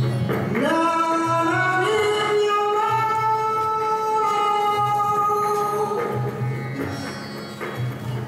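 Music with a solo voice singing one long held note. The note slides up in steps in the first couple of seconds and fades a little after the middle, over a low pulsing accompaniment.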